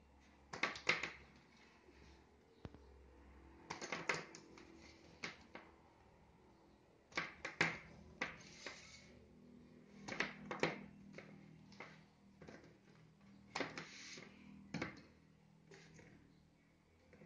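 Scissors snipping through thin black plastic drip-irrigation tubing, one cut after another. Each cut is a short cluster of sharp snips, coming every three seconds or so, about six times.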